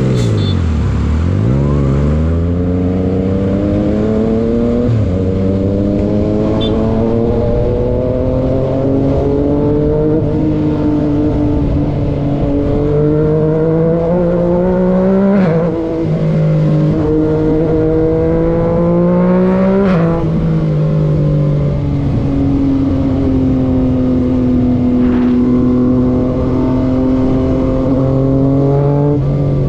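Yamaha MT-09 three-cylinder motorcycle engine running hard, its pitch climbing steadily and then dropping suddenly several times, as at upshifts while accelerating through the gears, then holding fairly steady near the end.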